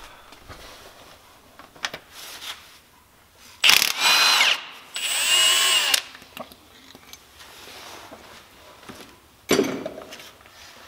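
Milwaukee Fuel cordless power tool spinning out the balance shaft bolts on a Focus ST engine, in two runs of about a second each, its motor whine rising and falling in pitch. A short, sharp noise comes near the end.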